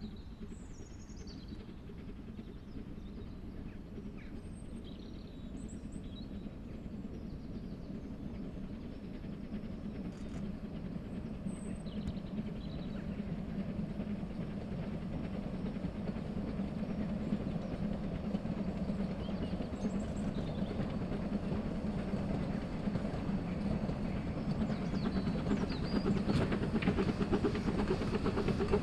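Small narrow-gauge steam locomotive hauling coaches as it approaches, its low running rumble and wheel noise growing steadily louder. A few faint bird chirps sound over it in the first half.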